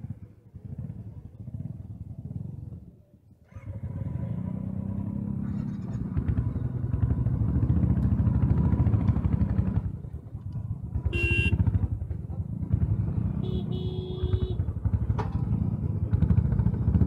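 Royal Enfield Bullet 500's single-cylinder engine running with a rapid steady thump. It is quieter at first and gets louder and fuller a few seconds in as the bike pulls along. A vehicle horn beeps briefly twice in the second half.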